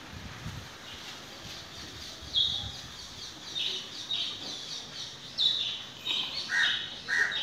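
Birds chirping: short, high calls that drop slightly in pitch, the first loud one about two and a half seconds in and a quicker run of them near the end.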